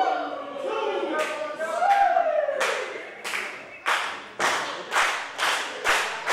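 Wrestling crowd voices calling out, then rhythmic hand-clapping starting about two and a half seconds in, at about two claps a second and speeding up.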